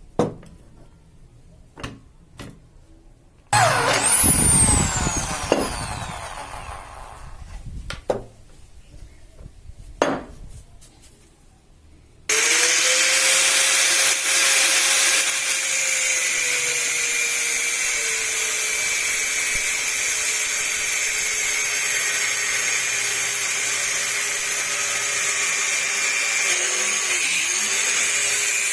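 Electric power tool working steel. About three and a half seconds in it runs briefly, then winds down with a falling whine, followed by a few sharp metal knocks. From about twelve seconds in it runs steadily under load, with a strong high hiss over a motor whine.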